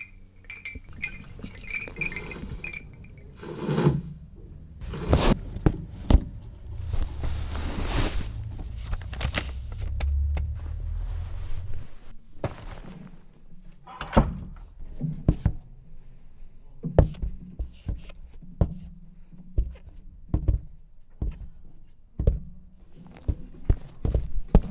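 Foley sound effects for a car advertisement: a high, broken beeping in the first three seconds, then a series of thunks and knocks, with a low rumble from about six to twelve seconds in, followed by many scattered short knocks and clicks.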